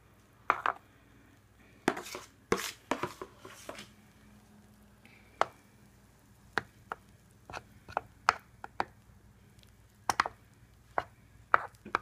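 Irregular sharp taps and light scrapes of a utensil against a waffle maker's nonstick plates as waffle batter is spread across the tray, some coming in quick clusters.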